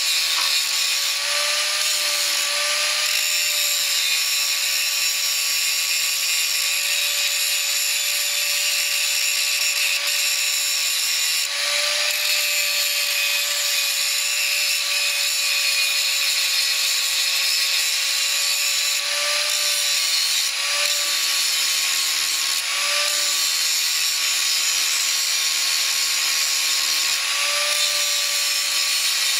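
Electric angle grinder running steadily with a high whine while its disc cuts into a steel sprocket, throwing sparks. The whine wavers briefly a few times as the disc is pressed into the metal and eased off.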